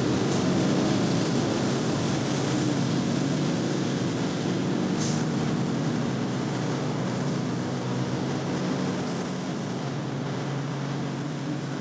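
Diesel locomotive engine running with a low, steady hum of several tones over rumbling noise, slowly fading.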